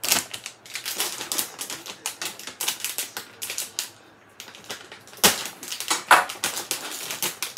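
Crinkly plastic bag of croutons crackling as it is handled, opened and reached into, with croutons rattling inside. A few sharper, louder crackles about five and six seconds in.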